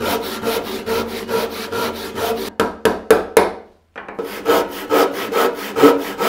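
Japanese double-edged pull saw (ryoba) rip-cutting thick 8/4 hickory by hand: quick, even rasping strokes, about four a second. The strokes break off for a moment a little past halfway, then carry on at a slightly slower pace.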